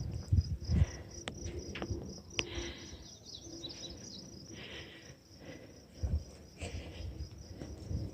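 Insects chirping in a steady, rapidly pulsing high trill, with low rumbling thumps near the start and about six seconds in and a few sharp clicks in the first seconds.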